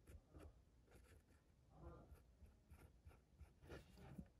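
Faint, irregular scratching strokes of a chrome metallic marker tip worked over a toy monster truck's roll cage.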